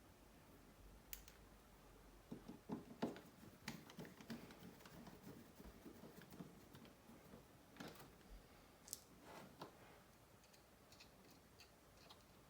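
Faint, irregular clicks and taps of small phone parts and tools being handled on a desk, busiest in two stretches.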